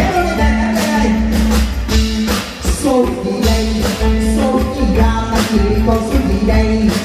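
Loud amplified stage music with a steady beat, a singer's voice carried over it through a microphone.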